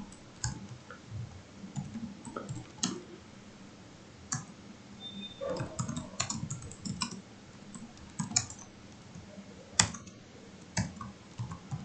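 Typing on a computer keyboard: irregular keystrokes in short runs with pauses between.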